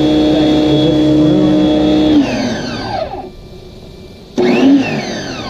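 Ivation 2200 PSI electric pressure washer's motor and pump running steadily, then winding down in pitch about two seconds in as the trigger is let go. Near the end it starts up briefly again with a quick rise and fall in pitch.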